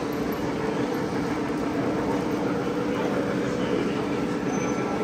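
Model trains running on expo layouts: a steady, even rumble with a low hum.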